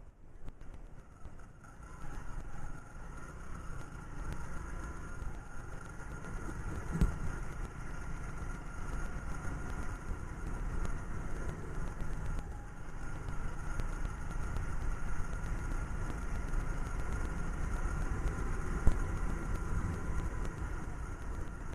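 TVS Sport motorcycle's single-cylinder engine running as the bike is ridden, under a steady low rumble of wind and road noise. Two brief knocks come through, one about a third of the way in and a louder one near the end.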